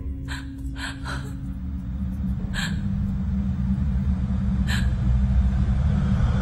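Low, ominous horror-score drone, slowly building, with about five short, sharp gasps cutting through it in the first five seconds.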